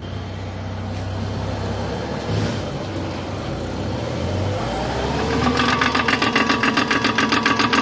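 Car engine running, its pitch rising as the car pulls away, then a fast, even clicking of about seven clicks a second from the front wheels: the clicking of worn CV joints, which the mechanic says are bad on both sides.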